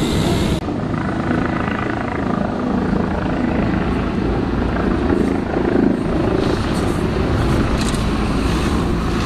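Single-deck bus drives up and passes close by, its engine running with a steady hum that peaks about six seconds in as it goes past.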